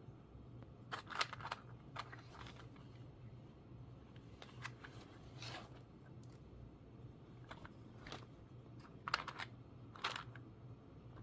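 Faint handling noise from a plastic car retainer clip kit: light clicks and rattles of small plastic parts, a second or two apart, over a low steady hum.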